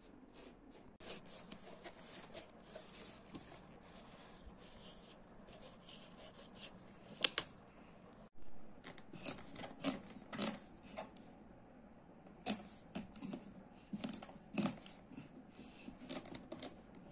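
Knife cutting into a raw butternut squash on a metal tray: irregular sharp crunching clicks and cracks as the blade works through the hard rind and flesh, loudest about seven seconds in and in a run of cracks through the second half.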